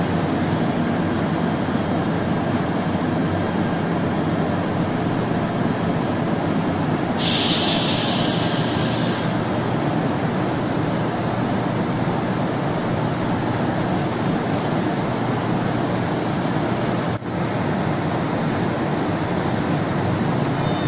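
KTM Komuter electric multiple unit at the platform, its running equipment giving a steady drone. About seven seconds in, a burst of air hiss lasts about two seconds.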